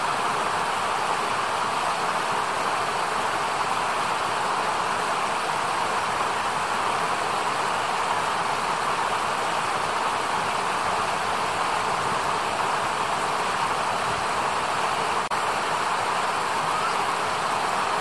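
Shallow mountain stream rushing over rocks: a steady, even rush of water, broken by one split-second dropout late on.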